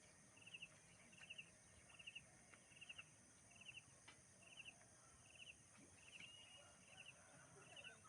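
Faint outdoor quiet with an insect chirping steadily: short pulsed chirps repeating about every 0.8 seconds, over a steady high hiss.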